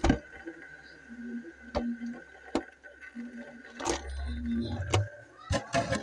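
A series of sharp knocks and clicks, roughly one every second, over a faint steady tone: things being handled and bumped inside a refrigerator.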